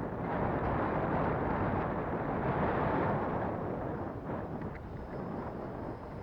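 Wind buffeting the microphone, a dense rushing noise that eases after about four seconds. A faint high whine of the RC jet's 80 mm electric ducted fan comes in near the end.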